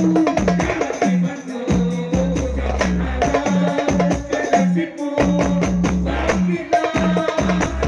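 Darbuka drumming with quick, dense strikes over a steady rhythm in a sholawat percussion ensemble, with tambourine jingles and a deep, repeating bass beat.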